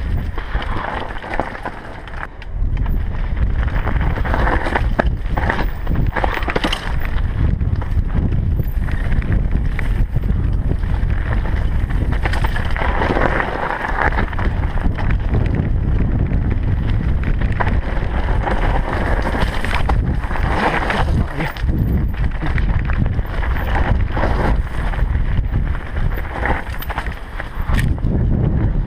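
Mountain bike descending a rocky singletrack: tyres crunching over loose stones and the bike rattling and knocking over bumps, under a steady low rumble of wind buffeting a GoPro Hero3 Black's microphone.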